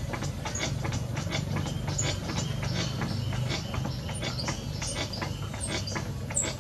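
Potter's wheel spinning with a low mechanical hum and a rapid, uneven clicking as it turns.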